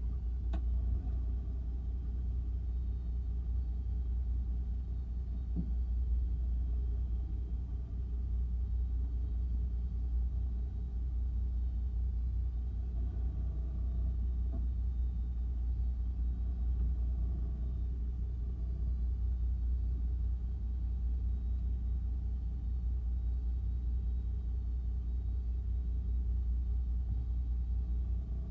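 Small fishing boat's engine idling, a steady low rumble that holds even throughout.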